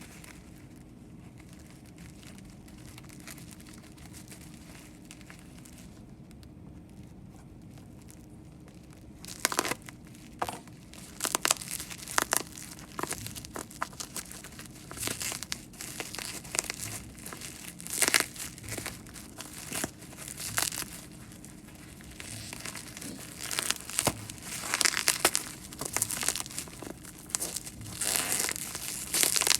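Packaging being handled for an unboxing: after a quiet start, crinkling and tearing begin about a third of the way in and go on in irregular bursts, busiest near the end.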